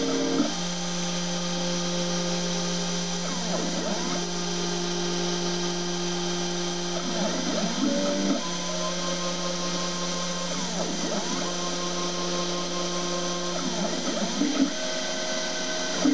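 CNC mill cutting a thin vulcanised fibreboard sheet with a fine engraving bit: a steady spindle whine with stepper-motor tones on top that change pitch every few seconds as the axes change direction.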